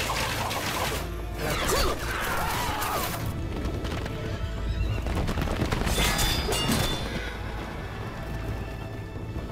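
Battle-scene film soundtrack: a horse whinnies about two seconds in, over galloping hooves, a low rumble and a music score, with a few sudden crashes of battle noise.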